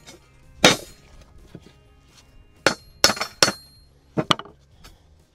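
Hammer striking an upturned cast-iron assay cone mold sitting on a steel plate: sharp metallic clanks with a brief ring. There is one blow about a second in, a quick run of four around three seconds, and two more just after four seconds. The blows are meant to knock loose a lead prill stuck inside the mold, which he blames on pyrite in the slag.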